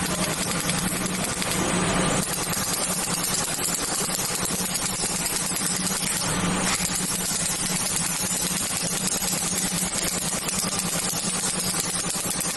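Steady machine noise: a low hum under a dense hiss, its character shifting slightly about two seconds and seven seconds in.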